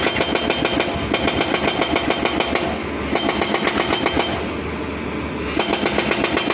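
Hydraulic rock breaker on a Hyundai 215L excavator hammering into a rock face: a rapid, even clatter of blows over the diesel engine's running. The hammering eases briefly about three seconds in and again a little after four seconds, then picks up again near the end.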